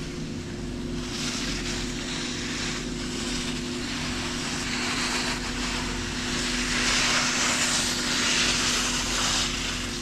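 Steady machine drone with a few fixed tones, under a rushing hiss that swells about a second in and again louder from about six and a half to nine and a half seconds.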